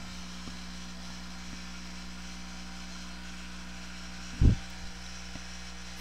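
Steady low electrical hum and hiss from a corded handheld microphone, with one brief low thump about four and a half seconds in.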